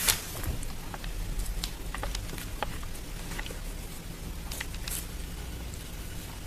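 A cat batting a small plastic trouser button about: a sharp click right at the start, then scattered light clicks and taps as the button skitters and is struck.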